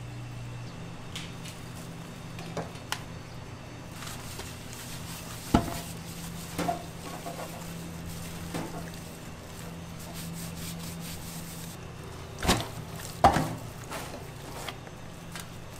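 Gloved hands handling a raw pork shoulder, with soft wet handling sounds as spice rub is worked into the meat. Several sharp thuds come as the meat is set down and moved in a stainless-steel tray, two of them close together near the end. A steady low hum runs underneath.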